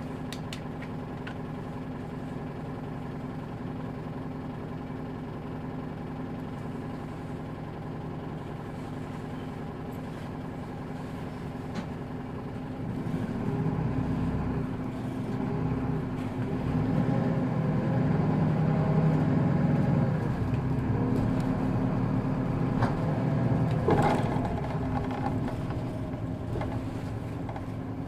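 Hino Poncho bus diesel engine heard from inside the bus, running steadily for about the first dozen seconds, then getting louder as the bus pulls away, its pitch rising and falling through several gear changes. A sharp click about 24 seconds in, then the engine eases off.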